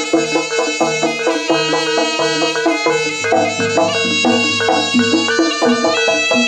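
Jaranan traditional music played loud through a sound system: a reedy wind melody with long held notes over a steady beat of drums and gong-chime percussion.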